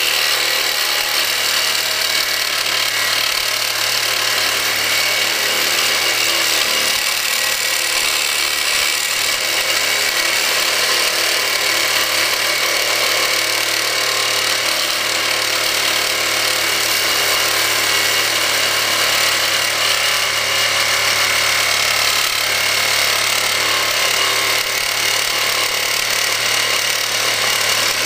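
Reciprocating saw running without a break, its Diablo carbide-tooth blade grinding through a hardened steel file: a loud, steady, harsh metal-on-metal rasp over the motor's constant hum.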